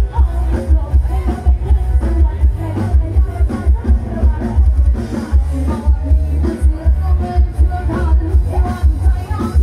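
Live band on a mobile stage truck playing loud amplified dance music. Keyboard, bass guitar and drums drive a heavy, steady bass beat, and women sing into microphones.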